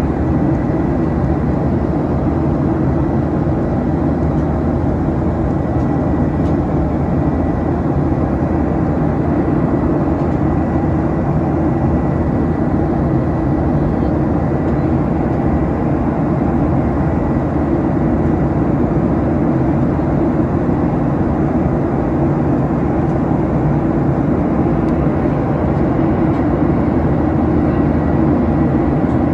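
Steady cabin noise of a Boeing 737-900ER in its climb, heard from a window seat: the CFM56-7B turbofans running evenly under climb power, with a thin steady high whine above the low noise.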